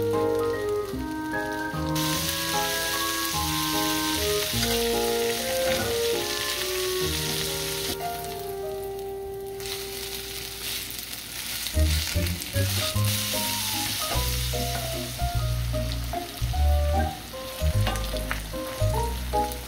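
Shredded potatoes sizzling as they fry in butter in a cast-iron skillet, a steady hiss that breaks off briefly about eight seconds in.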